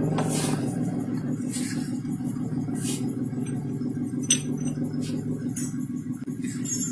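A small engine running steadily at idle, with a few light clicks and one sharp click about four seconds in.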